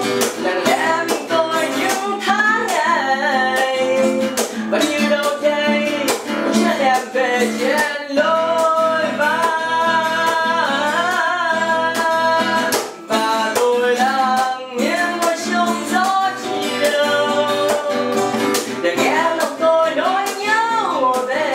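Acoustic guitar played as accompaniment, with a voice singing a melody over it.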